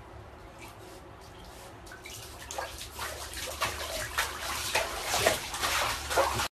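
A Shiba Inu paddling through water in a bathtub, splashing. The splashing starts about two seconds in, grows louder and more irregular, and cuts off suddenly.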